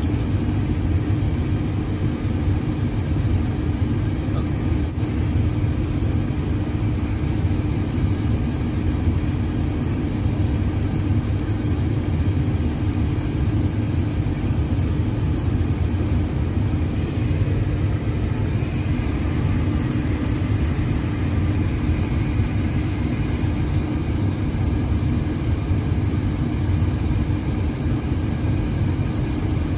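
Steady low rumble with a constant hum: the background machinery noise of a powered airliner cockpit on the ground.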